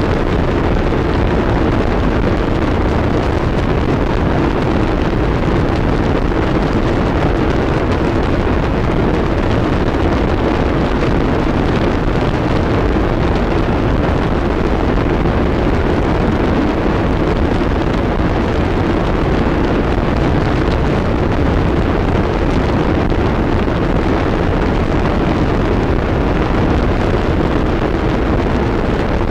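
Harsh noise wall: a dense, unchanging wall of distorted electronic noise, thick and dark, with most of its weight in the low and middle register and little hiss on top.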